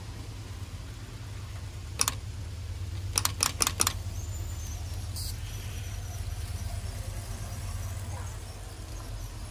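Telegraph straight key being tapped: one sharp click about two seconds in, then four quick clicks a little over a second later, over a steady low hum.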